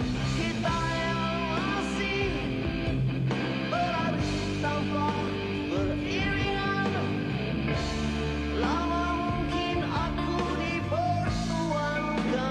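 Heavy rock band playing: distorted electric guitars, bass and drums, with a male voice singing a melodic line over them.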